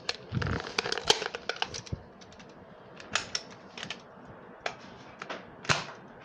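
Irregular plastic clicks and clacks of a toy dart gun being handled and reloaded, with a dull knock about half a second in and a sharper click near the end.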